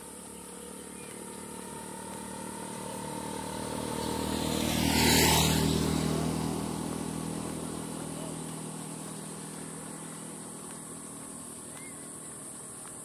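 A motorcycle approaching along the road, passing close by about five seconds in, then fading away into the distance.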